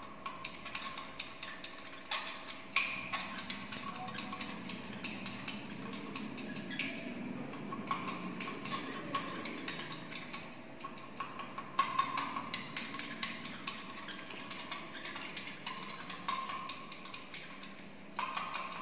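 Glass stirring rod clinking and tapping against the inside of a small glass beaker, stirring nickel chloride hexahydrate into ethanol to dissolve it. A quick, uneven run of clicks with a few louder knocks.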